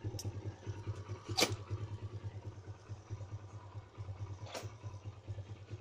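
Dirt bike engine running low and steady, with a rapid, even pulsing beat. Two sharp clicks come over it, about a second and a half in and again near the end.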